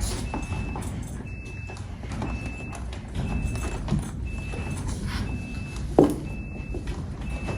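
Vehicle reversing alarm beeping about once a second, one steady high tone, over a low steady rumble. A brief louder sound comes about six seconds in.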